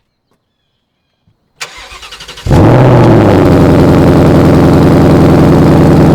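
Car engine cold start: the starter cranks for about a second, then the engine catches with a brief flare that falls away and settles into a loud, steady idle.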